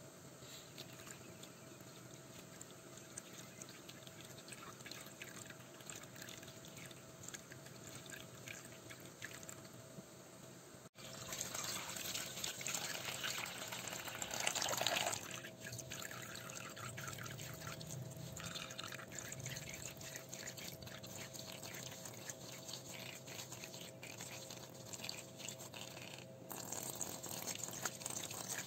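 Water running and dripping into a small plastic tub of muddy soil in a sink, with splashing as fingers stir it: a soil sample being washed to rinse out the fine clay and silt for a sand-content test. The sound cuts off suddenly about eleven seconds in and comes back as a louder, steady run of water, with a brief louder splash a few seconds later.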